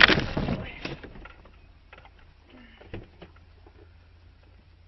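Noise of a car crash dying away within the first second, then a quiet car cabin with faint scattered knocks and clicks and a small thump about three seconds in.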